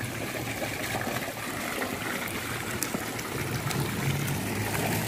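Steady splashing and trickling of water from fountain jets falling into a swimming pool.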